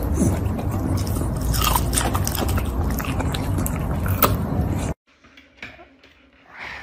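Shiba Inu crunching and chewing a raw broccoli floret, a run of irregular crisp crunches; the sound cuts off suddenly about five seconds in.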